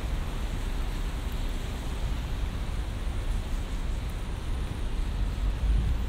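Rainy city street ambience: a steady hiss of rain and of traffic on the wet road, over a low traffic rumble that grows louder near the end.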